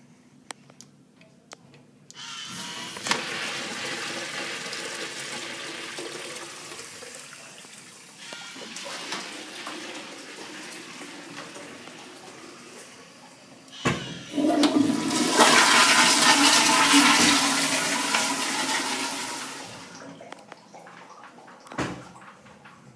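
Commercial flushometer flush valves flushing. A urinal flushes about two seconds in and its rush of water slowly tapers off. About 14 seconds in, the sharp click of a handle is followed by a louder toilet flush that dies away about 20 seconds in, and another sharp click comes near the end.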